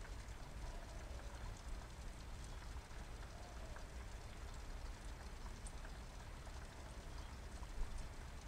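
Thin stream of water from a pipe splashing steadily into a small pond, a faint patter of drops with a low rumble beneath.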